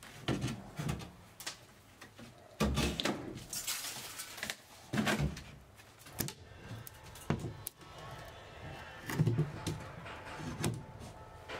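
Irregular knocks and bangs as interior fittings are pulled and knocked out inside a steel ship's forecastle, with the loudest hits about three and nine seconds in.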